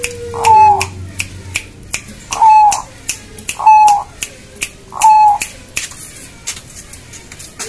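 A zebra dove (Bangkok perkutut) cooing: four short, loud coo phrases a second or two apart, with sharp clicks in between.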